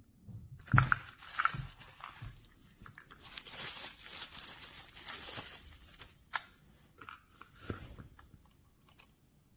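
Small objects being handled close up: rustling and crinkling, with a few sharp knocks and taps.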